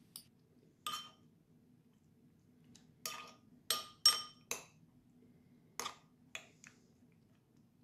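Metal teaspoon clinking against a ceramic bowl while stirring daikon ribbons in passata: about seven short ringing clinks, several close together a little after three seconds in, over a faint low hum.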